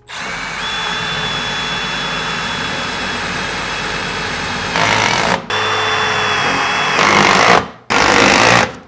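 Cordless impact driver driving screws into a galvanized sheet-metal duct seam. It runs for about five seconds, stops briefly, then runs twice more in shorter, louder spells near the end.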